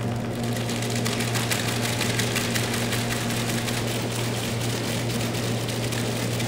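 Dense rustling and crackling from light white objects shaken rapidly in both hands, over a steady low hum.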